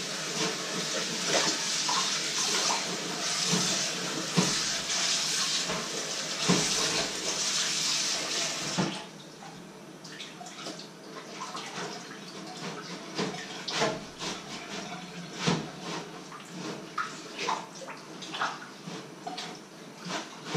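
Water running from a kitchen tap into the sink, turned off about nine seconds in; after that, scattered clinks and splashes of things being washed by hand in the sink.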